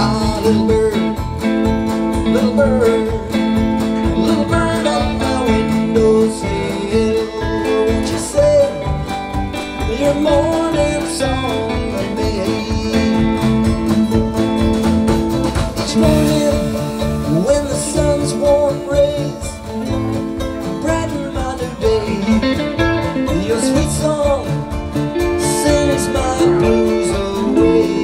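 Acoustic country-bluegrass band playing an instrumental break of a folk song, with guitars steady under a wavering lead melody line.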